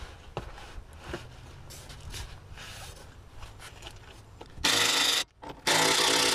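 Faint handling and clicks of a socket wrench being fitted onto a leaf-spring U-bolt nut. Near the end come two loud half-second bursts of the wrench running on the nut.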